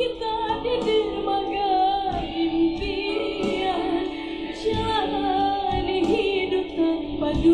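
A woman singing a ballad over backing music, holding long notes that waver in pitch.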